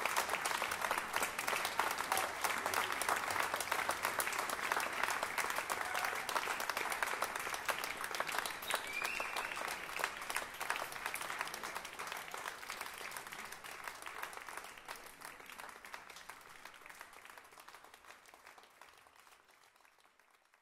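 Audience applauding, many hands clapping together, fading away over the last several seconds.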